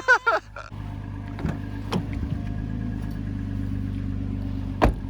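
Car running at a steady low drone, with a few light clicks and one sharp knock near the end.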